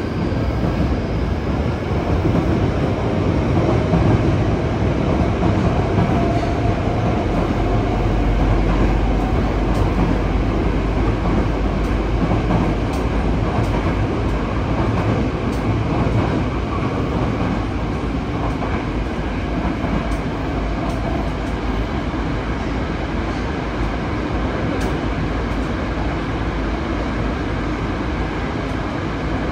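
Yokohama Municipal Subway 3000S-series train running, heard from inside the car in a tunnel: a steady loud rumble of wheels on rail, with a faint whine from the Mitsubishi IGBT-VVVF traction inverter that comes and goes and occasional light clicks.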